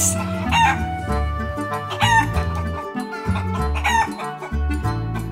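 Chicken calls, short clucks about every two seconds, over background music with a steady bass line.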